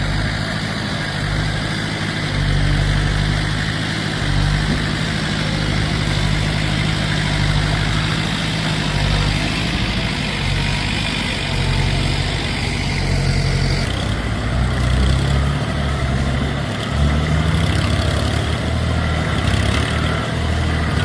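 A large engine running steadily at a low, even pitch, with the sound changing abruptly about two-thirds of the way through.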